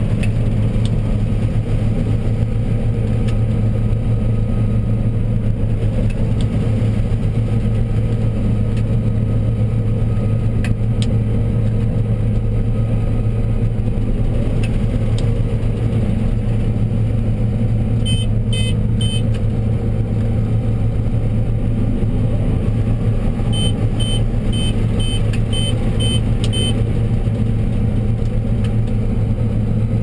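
John Deere 9770 combine running steadily under load while harvesting corn, heard from inside the cab as a constant engine and machinery drone. A few short high beeps come about eighteen seconds in, and a run of about seven evenly spaced beeps follows a few seconds later.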